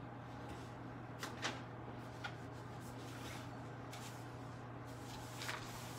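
Quiet room with a steady low hum and a few light knocks and rustles of movement, the clearest about a second and a half in and another near the end.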